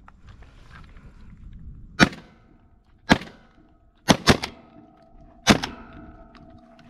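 12-gauge shotgun shots: five sharp blasts in about three and a half seconds, two of them a fraction of a second apart.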